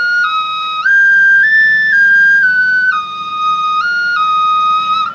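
Tiny 6-hole ocarina played: a high, pure whistling tune of about ten notes that step up and down, smoothly joined without a breath, ending near the end.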